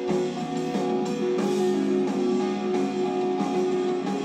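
Rock music with strummed guitars and drums, played from a vinyl record on a record player.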